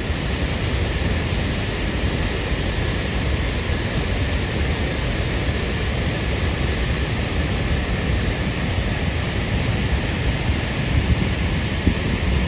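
White River Falls pouring at close range: a loud, steady rush of falling whitewater with a deep rumble underneath.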